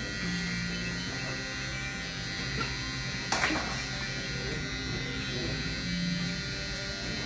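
Electric hair clippers buzzing steadily during a close haircut, with a short sharp clack about three and a half seconds in.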